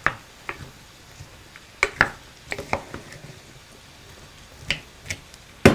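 Wooden spoon stirring diced onion and green pepper in a stainless steel saucepan, knocking against the pan in scattered, irregular clicks, with a quick run of louder knocks at the very end.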